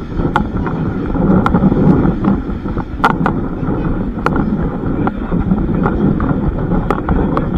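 Historic train running: a steady rumble with wind on the microphone and short, sharp clicks at irregular intervals.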